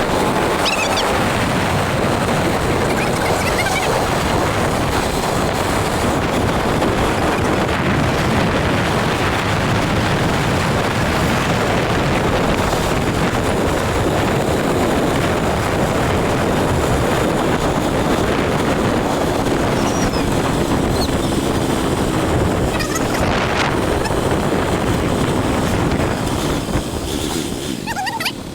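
Steady rushing noise of a moving vehicle under way, with wind buffeting the microphone.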